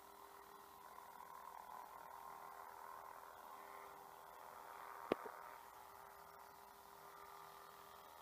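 Near silence: faint room hiss with a faint steady hum, broken by one sharp click about five seconds in and a softer one just after.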